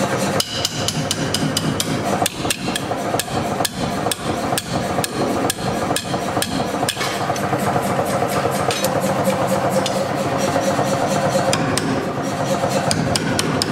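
Hand hammer striking a handled top tool (fuller) held on a red-hot steel bar on the anvil: a rapid, even run of ringing metal-on-metal blows, about three to four a second, over a steady hum.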